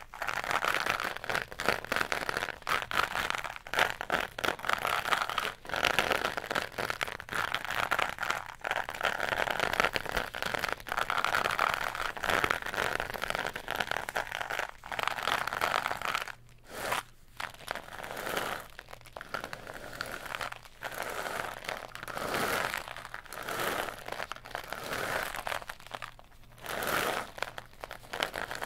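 Cardboard tube worked in both hands close to the microphone: a steady crunchy, crinkly scraping, breaking off briefly about halfway, then coming in separate strokes a second or two apart near the end.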